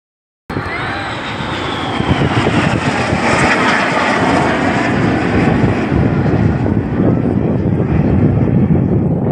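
Jet aircraft flying past overhead: a loud, steady jet-engine rush that starts suddenly about half a second in, with a falling whine in the first couple of seconds.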